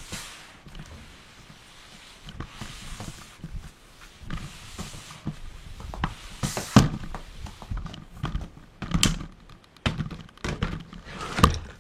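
Irregular knocks and thunks of a mop and plastic bucket being handled, with scuffing between the strikes. The strikes come close together about two-thirds of the way through and again near the end, where they are loudest.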